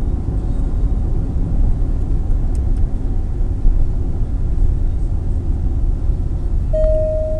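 Road and engine noise heard inside a vehicle's cabin while driving at about 75 km/h, a steady low rumble. A short, steady beep sounds near the end.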